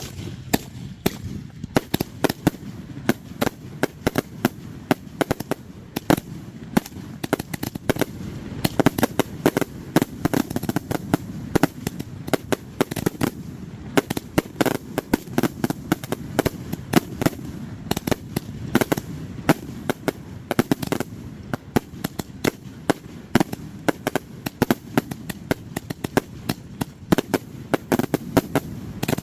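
A fireworks show going off in a rapid, unbroken barrage of sharp cracks and booms, many reports a second.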